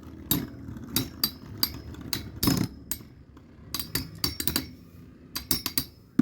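Storm Pegasis 105RF and Earth Aquila 145WD, two metal Beyblade spinning tops, clashing in a stadium: about a dozen irregular sharp metallic clinks.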